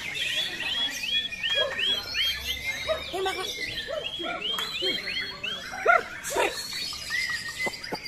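White-rumped shama (murai batu) singing rapid runs of repeated sharp, upturned whistled notes, about three a second, in two bursts separated by a short pause. Other caged songbirds call alongside.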